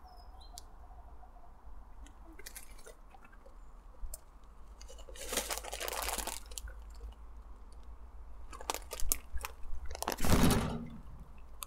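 Rabbits crunching and chewing dried ribwort plantain leaves in small crisp bites, with louder rustling about five seconds in and again near the end.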